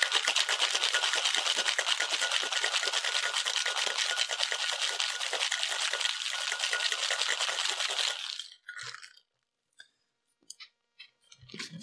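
Ice cubes and liquid rattling inside a two-piece metal cocktail shaker shaken hard: a fast, even rattle that stops abruptly about eight seconds in. A few light clicks and knocks of the metal tins follow.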